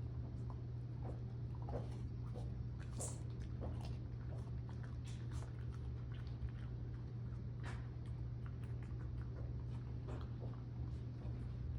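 A dog licking food off a lick mat: irregular short wet licks and smacks over a steady low hum.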